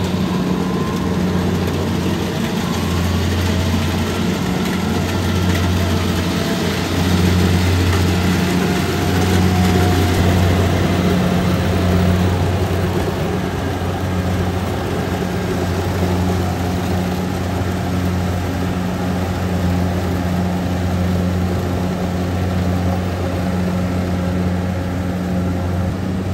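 Kubota DC-70 rice combine harvester running steadily, its diesel engine and machinery giving a continuous low drone.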